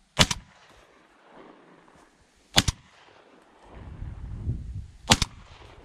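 Three close shotgun shots, about two and a half seconds apart.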